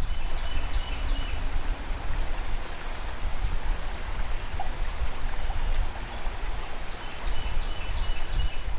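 River water flowing steadily over a shallow stream bed, with a strong low rumble under the hiss. Two brief sets of faint high chirps come about a second in and again near the end.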